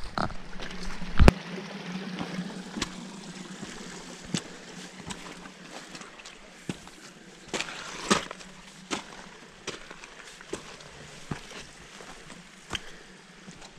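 Hiking footsteps on a dirt trail, about one step every three quarters of a second, over the steady rush of a small snowmelt stream. A sharp knock about a second in.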